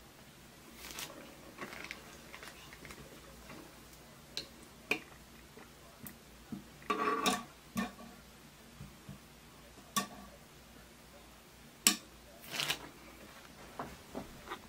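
Scattered light clicks and taps from painting things being handled on a table, such as a paintbrush and small plastic paint pots, with short clatters about seven and twelve seconds in.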